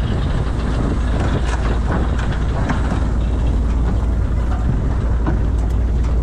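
Small fishing boat's engine running with a deep, even rumble, with scattered clicks and knocks from the net and deck gear.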